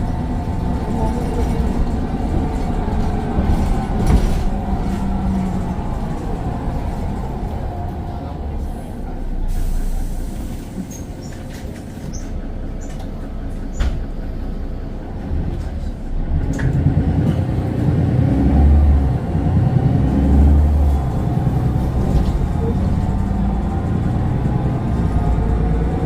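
Mercedes-Benz Citaro's turbocharged Daimler OM906 6.4-litre six-cylinder diesel and ZF automatic gearbox running under way, with a faint turbo whine that falls in pitch over the first few seconds. The engine note drops off in the middle with a couple of clicks, then comes back louder and deeper, the whine rising again near the end.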